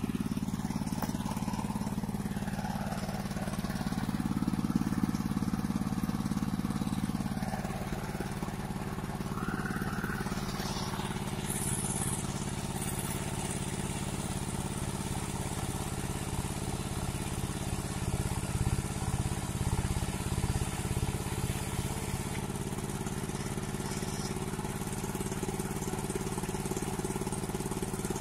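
Engine of a mobile circular sawmill (serkel) running steadily, with a constant droning note.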